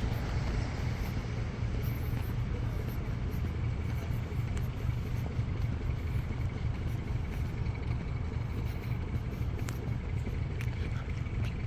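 Steady low engine drone with a faint, constant high whine running through it, over an even wash of background noise.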